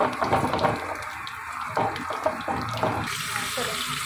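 A tarka of cumin seeds, crushed red chilli, green chillies and ginger frying in hot oil in a frying pan, sizzling with rapid crackles and pops. The crackling thins out about three seconds in as the pan is tipped over the pot of curry.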